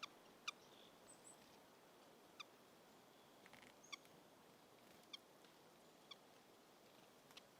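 Near silence with faint hiss, broken by about six brief, faint high ticks spread a second or so apart.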